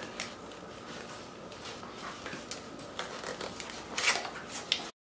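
A cardboard retail box being handled and its top flap pried open by hand: scattered clicks, scrapes and rustles of paperboard, the loudest cluster about four seconds in, then the sound cuts off suddenly.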